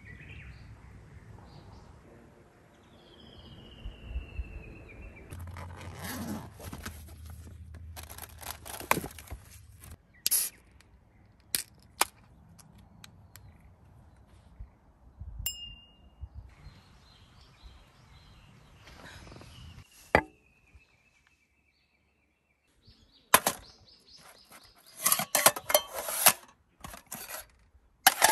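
Scattered sharp clinks and knocks, with denser clattering and rustling near the end. Behind them a bird calls twice with a long falling whistle.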